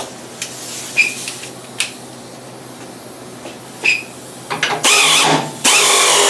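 A few light metallic clinks as the socket goes onto the upper control arm mounting bolts. Then, about four and a half seconds in, a power ratchet runs in short bursts, and from about a second later it runs steadily, driving the bolts down.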